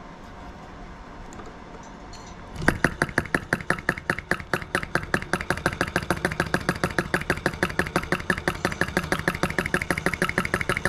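PM Research No. 3 flame licker (vacuum) engine starting about two and a half seconds in and running with an even, rapid clacking that quickens to about eight beats a second. It is running slower on an alcohol lamp whose wick has been trimmed shorter.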